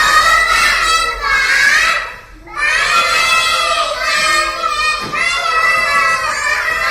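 A group of young children's voices, high and sustained, with a brief break about two seconds in.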